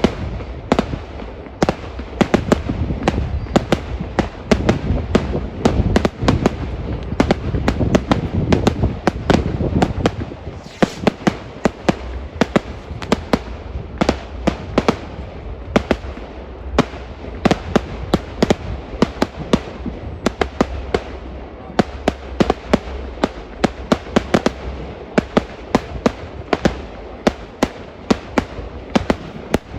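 Fireworks going off in a rapid, continuous barrage of sharp bangs and cracks, several a second, with a heavy low rumble through the first ten seconds or so.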